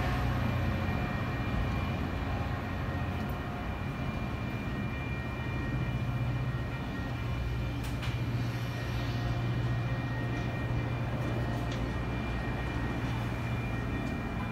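Caltrain passenger train rolling steadily past at a grade crossing: a continuous rumble of the cars' wheels on the rails, with a faint steady high-pitched tone over it.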